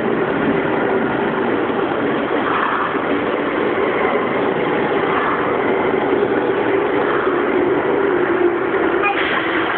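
Sendai Subway Namboku Line train running through a tunnel, heard from on board: a steady rush of wheel and tunnel noise with a motor hum that sags a little in pitch near the end.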